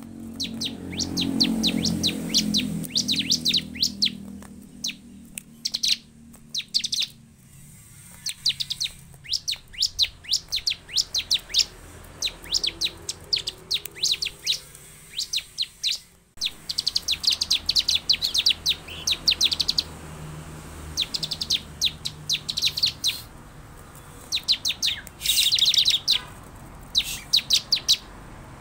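Bar-winged prinia (ciblek) calling in rapid trains of sharp, high chips, each train about a second long, repeated with short gaps. A low rumble sounds under the calls over the first few seconds.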